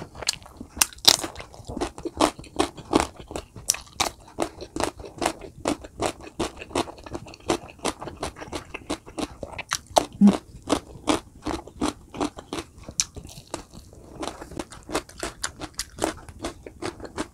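Close-miked chewing of roasted chicken: a steady run of wet, crunchy bites and chews, about two to three a second.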